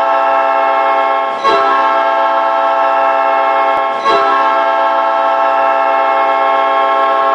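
Custom hockey goal horn: a loud multi-tone horn chord blown in long, steady blasts, with a fresh blast starting about a second and a half in and again about four seconds in.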